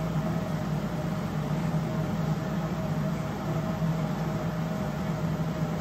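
Indoor spin bike's flywheel spinning steadily under pedalling: a continuous whir with a low hum.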